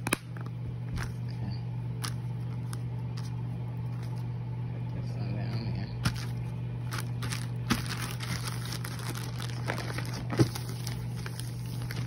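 Plastic flip lid of a Lysol disinfecting-wipes canister snapped shut with a sharp click, followed by scattered clicks and crinkling as packaging is handled, over a steady low hum.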